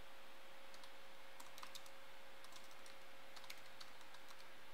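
Faint, sparse keystrokes on a computer keyboard as a shell command is typed slowly, over a steady low hiss with a faint hum.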